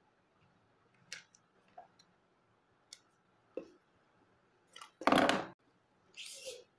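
A phone box and a plastic-wrapped phone being handled. Scattered light clicks and taps, then a loud rustle lasting about half a second about five seconds in, and a short high plastic crinkle near the end.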